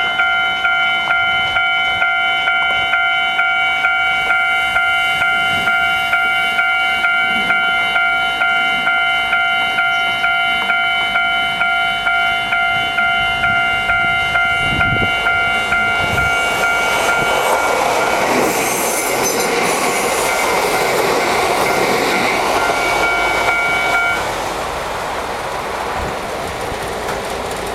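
Japanese level-crossing warning bell dinging in an even repeating rhythm while a Nagano Electric Railway train runs over the crossing, its running noise building past the halfway point. The bell cuts off about three-quarters of the way through as the train noise eases off.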